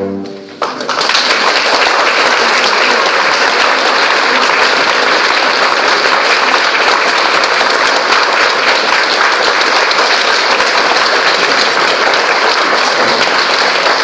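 The last chord of two cellos and piano dies away, then audience applause starts about half a second in and continues steadily.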